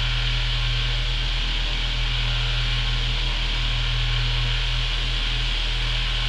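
HO scale model Shay locomotive running slowly along the track, heard as a steady low electrical hum with an even hiss over it.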